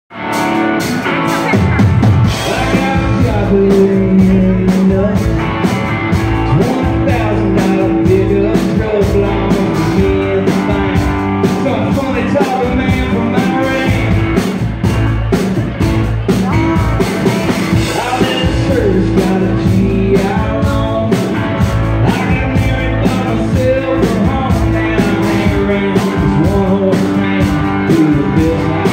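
Live country music: a male singer singing over a strummed acoustic guitar, backed by a band with a steady beat and a heavy low end.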